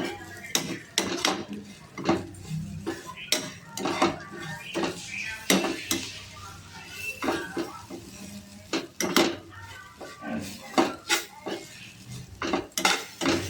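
Metal stirring utensil clanking and scraping against a pan as poha is stirred, in sharp, irregular knocks about once or twice a second.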